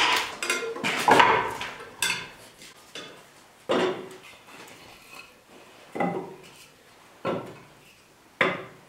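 Sticks of kindling being loaded into the cast-iron firebox of a Kalamazoo wood cook stove: a series of irregular wooden clunks and clatters as the sticks knock against each other and the iron.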